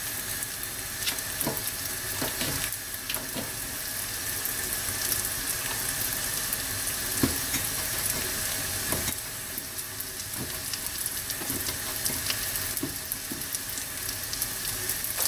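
Breadcrumbed pork chop frying in sunflower oil in a frying pan: a steady hiss of sizzling with scattered small pops and crackles, the pan not yet fully hot.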